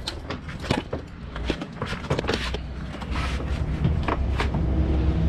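Knocks and clatters of a dirt bike being handled and wheeled out of the back of a cargo van, its parts and the van's floor rattling. A low steady rumble comes in about three seconds in.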